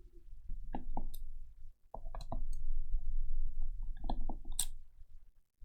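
A hard plastic electronics casing being handled and worked with small hand tools: scattered light clicks and knocks, with a short scrape near the end.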